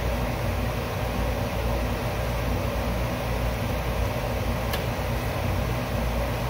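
Steady mechanical hum and hiss from background machinery, unchanging throughout, with a single brief click about five seconds in.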